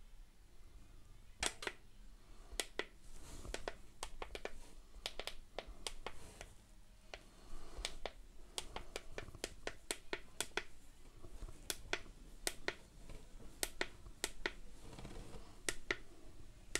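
Control buttons on a BOGASING M4 Bluetooth speaker pressed over and over: about thirty faint, sharp clicks at an uneven pace as the equalizer and other buttons are tried out.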